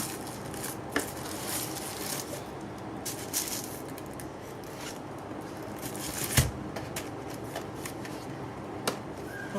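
Rustling and handling of a planner and its packaging, with a few sharp clicks and one louder knock about six and a half seconds in.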